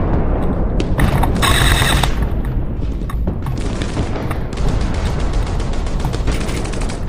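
Rapid airsoft gunfire, quick strings of clicking shots, over a heavy low rumble.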